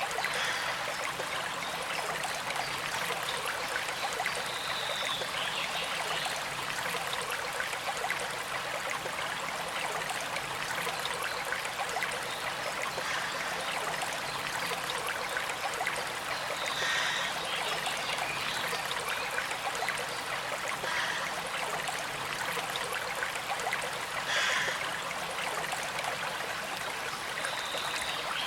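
A small stream running and trickling steadily. A few brief, faint high-pitched sounds come through it now and then.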